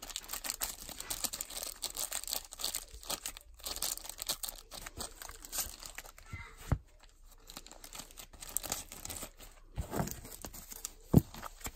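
Plastic card sleeves and rigid top loaders crinkling and rustling as a stack of trading cards is handled and sorted, with two sharper plastic knocks, one about two-thirds of the way in and a louder one near the end.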